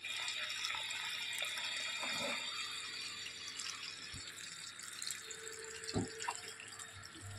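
Water running steadily, with a couple of light knocks about four and six seconds in.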